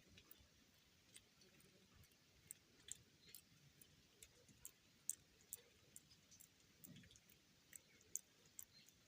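Faint, irregular sharp ticks and clicks, a few each second, over near silence.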